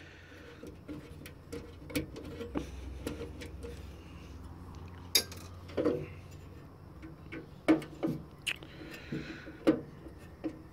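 Scattered small clicks and taps of a hand tool and fingers against the sheet-metal chassis and card guides of a network switch being taken apart, a few sharper knocks among them. A low steady hum runs underneath.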